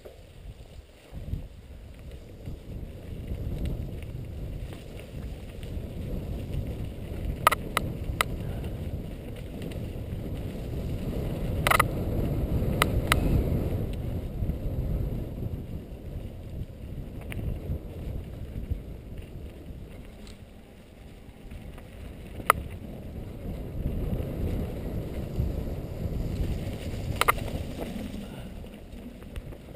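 Mountain bike riding downhill on a dirt trail: wind noise on the helmet camera's microphone and tyre rumble that swell and fade with speed, with about half a dozen sharp knocks from the bike jolting over bumps.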